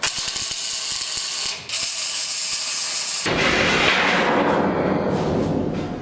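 MIG welding arc crackling and hissing on steel plate, with a short break about a second and a half in. About three seconds in, a steel sheet is slid across a steel box frame, a loud steel-on-steel scrape that fades near the end.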